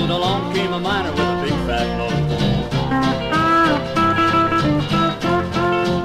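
Country band music, guitar to the fore, with some notes sliding up and down in pitch over a steady bass line.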